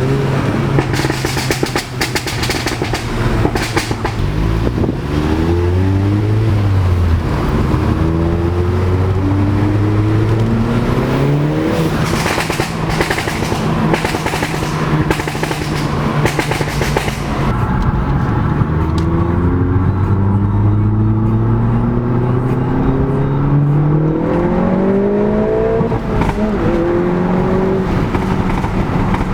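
Audi S1 accelerating hard through the gears. The engine note rises and drops back at each of several gear changes.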